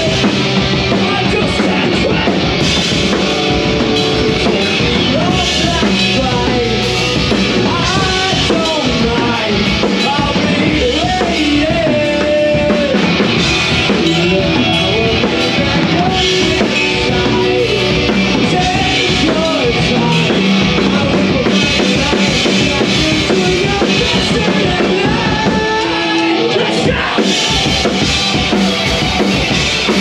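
Punk rock band playing live and loud: electric guitar, bass guitar and a drum kit.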